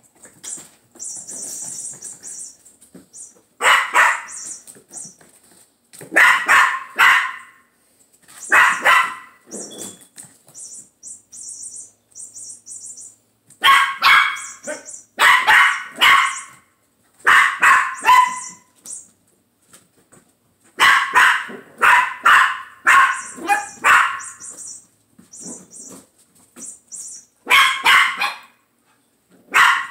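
Chihuahua puppy barking in high-pitched yaps, coming in clusters of two or three every few seconds.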